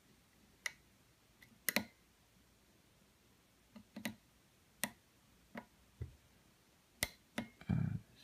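Sharp, irregular metal clicks, about nine over eight seconds, from a lock pick and tension wrench working the pins of an American Lock 700 series 5-pin padlock core.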